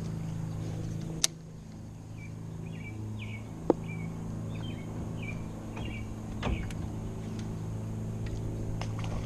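A steady low motor hum, even in pitch, with a few short bird chirps a couple of seconds in and two sharp clicks.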